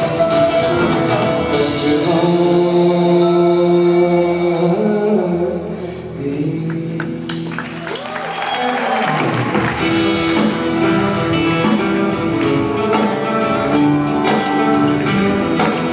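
Live band playing with singers, tambourine and guitar in the mix. The music thins out about six seconds in and the full band comes back in about three seconds later.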